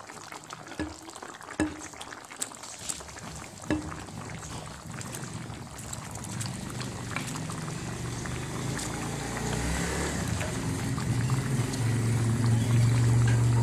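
Tomato-based chicken stew bubbling in a pot, with a few soft knocks early on as bok choy is laid on top; the bubbling builds and grows louder through the second half as the pot comes back to the boil.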